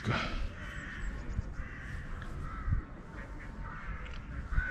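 Several bird calls over a low background rumble, with a soft knock near the end.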